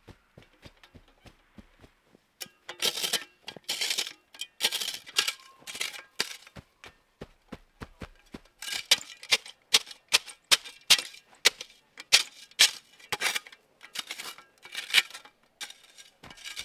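Snow crunching as a campsite is packed down with snowshoes and a shovel: a run of short crunches, about two a second, starting a couple of seconds in.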